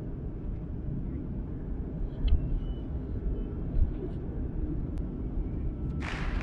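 Jet airliner cabin noise from a window seat over the wing: the steady low rumble of the turbofan engines and airflow in flight. Near the end, a louder pulsing sound cuts in abruptly.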